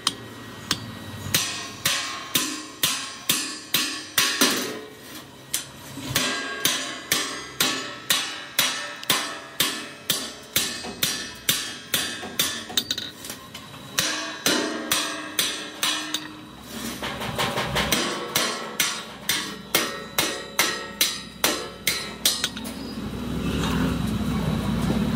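A hammer beating metal in a steady rhythm, about two to three blows a second, each blow ringing, with a brief pause about two-thirds through. Near the end a low rumbling noise rises under the blows.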